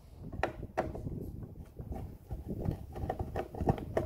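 Hand screwdriver turning screws out of the plastic wheel housing of a cordless cylinder lawn mower: irregular small clicks and scrapes of the driver tip working in the screw heads.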